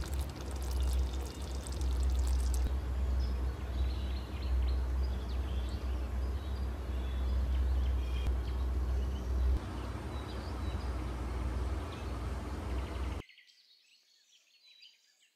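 Steady rushing noise with a strong low rumble, which cuts off suddenly about thirteen seconds in, leaving faint high bird chirps.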